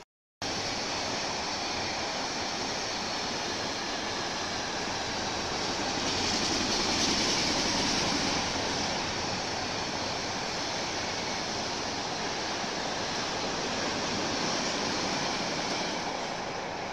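Freight train of container wagons rolling past: a steady rumble and rush of wheels on rail, loudest about seven seconds in and easing a little near the end. It begins after a brief silent break.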